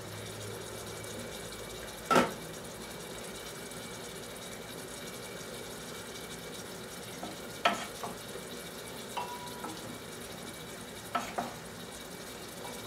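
Steady sizzle of food cooking in pots on a gas stove, broken by a few clinks and knocks of kitchen utensils and a glass pot lid. The loudest is a sharp knock about two seconds in.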